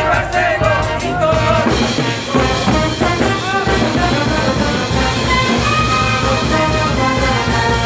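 A brass band playing: saxophones, trumpets and sousaphones over a drum kit and bass drum with a steady beat.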